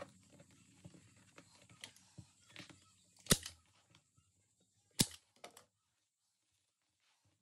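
Staple gun firing twice, about a second and a half apart, tacking a leather cover to the underside of a chair seat, after soft rustling of the leather being folded and pulled tight.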